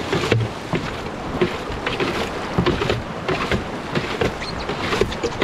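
Rushing river water and wind buffeting the microphone aboard a canoe running whitewater, with irregular knocks and splashes from the boat.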